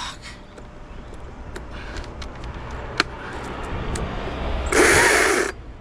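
Scattered sharp clicks and knocks over a low steady rumble, with one sharp click about three seconds in. Near the end comes a loud rushing burst lasting well under a second.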